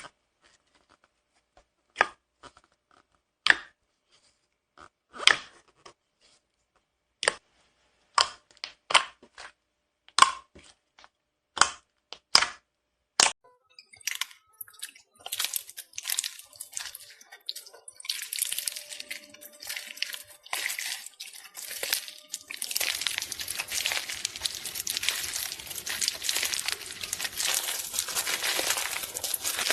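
Slime being handled close to the microphone: first a series of separate wet pops about a second apart, then, about halfway through, a switch to dense, continuous crackling that grows thicker near the end.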